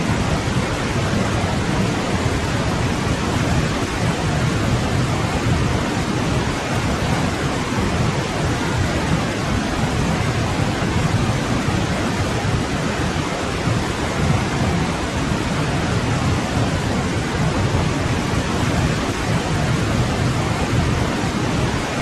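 Forest stream flowing: a steady rush of water with a strong low rumble underneath.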